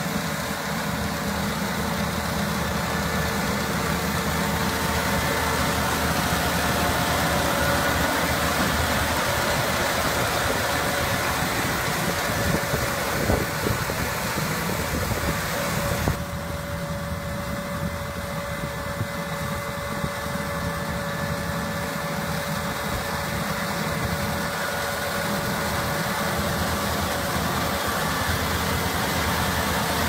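Rice combine harvester running steadily as it cuts standing rice, its engine hum mixed with mechanical noise. The sound changes abruptly about halfway through, becoming a little quieter and duller.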